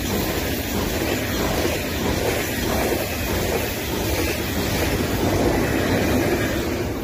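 Electric passenger train passing close by: a steady rumble of wheels on the rails, with the noise of the cars rushing past. The noise drops away near the end as the last car goes by.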